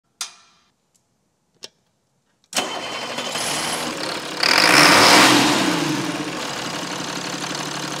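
Two sharp clicks, then an engine starts suddenly about two and a half seconds in, revs up and down for a couple of seconds, and settles into a steady idle.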